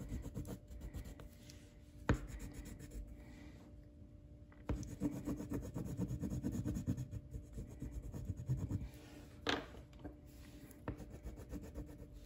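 A pencil or crayon colouring on paper: rapid back-and-forth scratchy shading strokes in spurts, with short pauses and a couple of sharp clicks.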